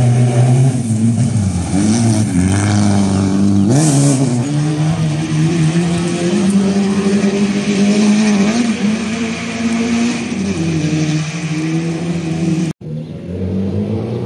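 A motor vehicle's engine running, its pitch rising and falling as it revs. The sound cuts out abruptly for an instant near the end, then resumes.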